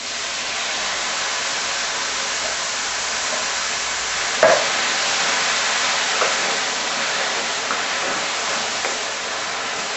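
Tinned tomatoes sizzling in a hot frying pan of mushrooms and garlic: a loud, steady hiss of steam starting as the tomatoes go in. A wooden spoon stirs and knocks against the pan a few times, loudest about four and a half seconds in.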